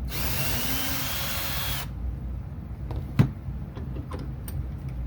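Power drill spinning a wire-stripping bit onto copper wire ends, running in reverse for about two seconds and then stopping abruptly. A single sharp click follows about three seconds in.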